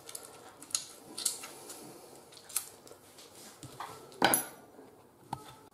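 Several light clicks and knocks of kitchen things being handled and set down on a wooden chopping board beside a small plastic bowl, the loudest a little over four seconds in.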